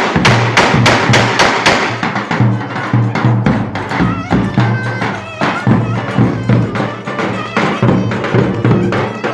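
Traditional Turkish folk music played live, with quick, regular drum strikes over a sustained melody.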